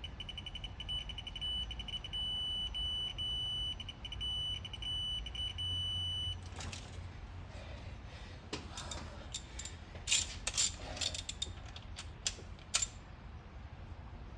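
Digital torque wrench adapter beeping, quick pulses that run into a steady high beep for several seconds as the bolt reaches its set torque; the beep stops about six seconds in. After that come a series of sharp metallic clicks and clatter from hand tools.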